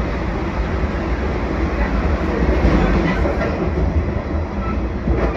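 Limited Express Shinano electric train running along the line: steady running noise of wheels on rails and the car in motion.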